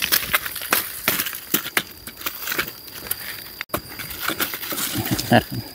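Dry leaves and dead wood crunching and snapping in a run of irregular sharp cracks.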